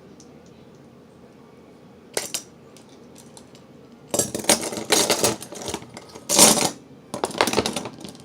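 Metal clinking and scraping as vise grips work the edges of a copper bracelet: one sharp clink about two seconds in, then a run of louder scrapes and clanks through the second half.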